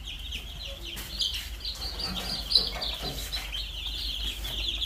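A large brood of young chicks peeping continuously: many short, high chirps overlapping without pause.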